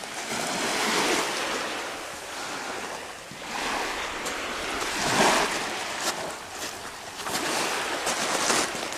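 Small sea waves washing in on a pebble beach, the surf swelling and easing about three times.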